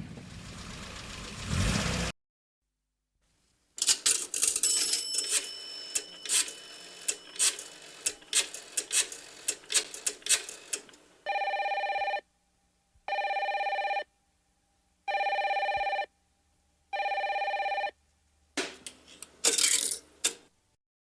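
A run of irregular clicks and taps, then a telephone ringing tone sounds four times, each ring about a second long with about a second's gap. Two short rustling bursts follow near the end.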